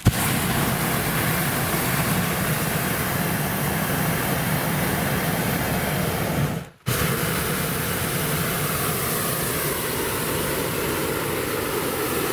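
Hot-air balloon propane burner firing into the envelope during hot inflation on the ground: a steady loud roar that cuts out for a moment about seven seconds in, then fires again.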